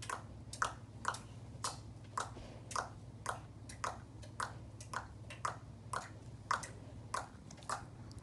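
Car turn-signal relay clicking steadily, about two ticks a second, over the low hum of the car.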